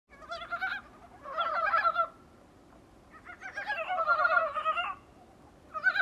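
Dybowski's brown frogs (Rana dybowskii) calling: four bursts of quick, repeated croaking notes, the longest about two seconds, with short pauses between.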